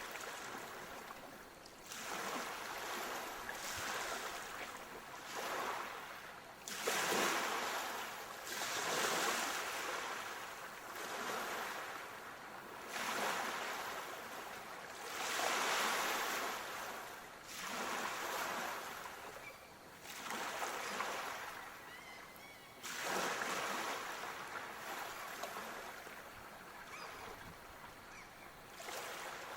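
Ocean surf washing onto a shore: rushing water noise that swells and fades every couple of seconds, with three bigger waves breaking suddenly.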